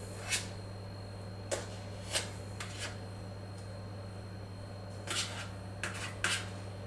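About eight short scrapes and rustles as cream cheese is scooped out of its tub onto kitchen scales, over a steady low hum.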